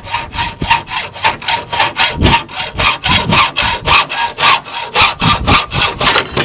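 Hacksaw cutting a copper pipe, in rapid, even back-and-forth strokes about five a second, which stop abruptly near the end.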